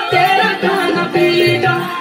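Garhwali folk dance song playing loud: a melodic voice or instrument line over a regular drum beat.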